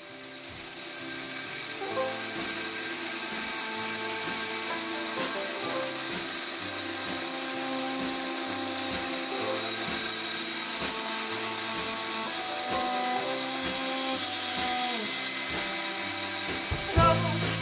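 Bandsaw running steadily as a small hardwood block is fed into the blade, its hiss rising over the first couple of seconds, with background music beneath. A short knock comes near the end.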